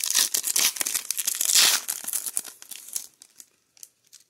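Foil wrapper of a 2021-22 Upper Deck Skybox Metal Universe hockey card pack crinkling and tearing as it is pulled open by hand, loudest about a second and a half in. It dies away to a few small rustles after about three seconds.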